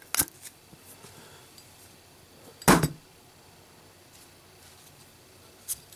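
Zippo lighter with a steel insert in a lit drop test: a faint click, then about two and a half seconds later one loud, sharp metal clack. A faint click comes near the end. The lighter passes the test.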